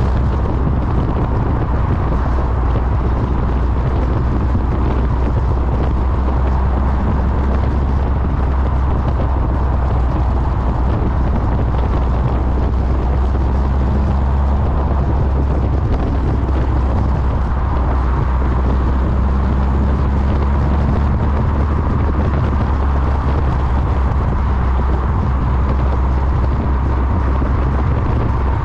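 Westfield sports car driving at a steady speed, its engine and exhaust a steady low drone largely buried under heavy wind noise on the microphone.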